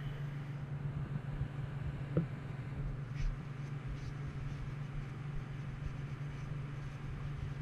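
A shop rag wiping oil off the aluminium engine case around a freshly torqued drain plug, with a couple of small knocks about two and three seconds in. A steady low hum from an evaporative swamp cooler runs underneath.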